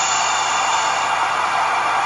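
Steady white-noise sleep track: an unbroken hiss of rain blended with a long shushing sound, even in level throughout.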